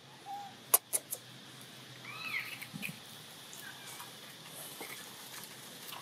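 Macaque monkeys giving short high squeaks and arched, chirping calls, with three sharp clicks about a second in.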